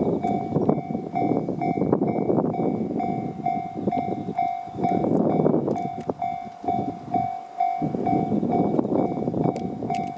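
Level crossing alarm ringing with the JR standard electronic bell tone, a steadily repeating ding, over the rumble and wheel clatter of a passing Shinano Railway 115-series electric train.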